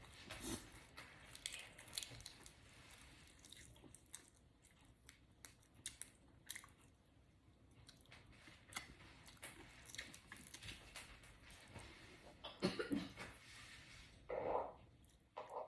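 Close-up eating sounds of someone chewing balut, a boiled fertilised duck egg: faint, wet, irregular smacks and small crunches.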